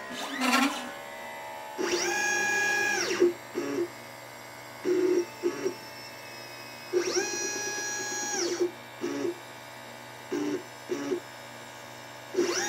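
LitePlacer pick-and-place machine's stepper motors whining as the gantry moves between parts: three long moves, each about a second and a half, rising in pitch as they speed up, holding, then falling as they slow down. Between them come several short, lower buzzing moves.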